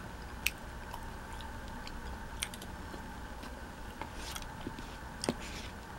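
Scattered light clicks and taps of a metal knife and fork on a paper plate, with some chewing, over a faint steady hum.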